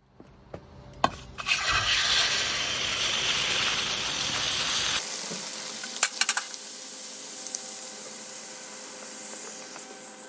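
A loud sizzling hiss starts about a second and a half in. It changes abruptly about five seconds in, with a few sharp clicks, then slowly fades.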